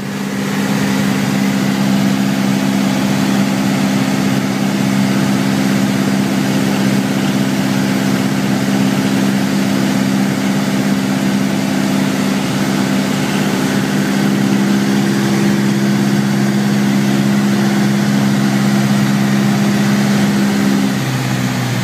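Piper Warrior's four-cylinder Lycoming engine and propeller droning steadily in cruise, heard inside the cabin. The note changes slightly near the end.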